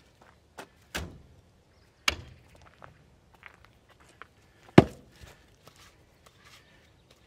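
Wood knocking on wood: split firewood pieces dropped onto the woodpile and a round log set down on the chopping block, three main thuds with the loudest about five seconds in.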